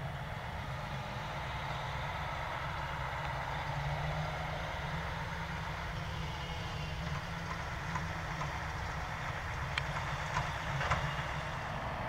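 Claas Jaguar self-propelled forage harvester running, a steady engine and machinery rumble, with a few light clicks about ten seconds in.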